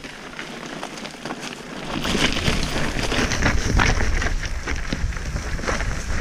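Mountain bike riding over a rough, stony trail: tyres crunching over loose rock and the bike rattling and knocking, with wind rumbling on the microphone. It picks up and grows much louder about two seconds in.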